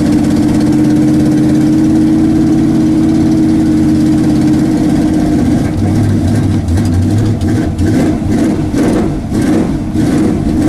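Ranger drag truck's engine running just after a hard cold start below freezing, holding a steady speed at first, then running unevenly and roughly from about six seconds in.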